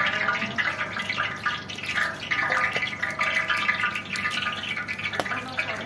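Chunks of meat sizzling and crackling in hot oil in a large plov kazan, with a steady hiss and many small pops. This is the first stage of cooking plov, browning the meat.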